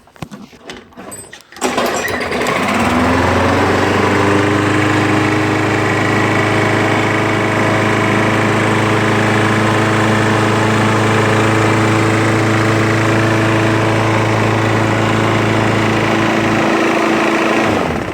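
2008 Briggs & Stratton 124T single-cylinder mower engine starting about a second and a half in, rising to speed, running steady and knocking like crazy, then winding down and stopping near the end. The knock is taken by the owner as the sign of a dying engine, from the piston-coating failures of late-2000s Briggs engines.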